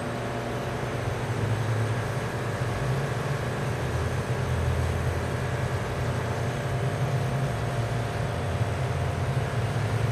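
Steady low mechanical hum with a few faint steady tones above it, the running of machinery such as refrigeration or ventilation.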